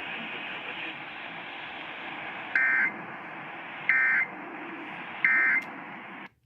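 Emergency Alert System end-of-message code received over a radio: three short, warbling digital data bursts about a second apart, over steady radio hiss. The radio audio cuts off abruptly near the end.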